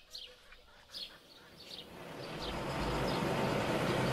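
Birds chirping in short, falling calls, then a bus engine and its road noise fade in about two seconds in and grow steadily louder.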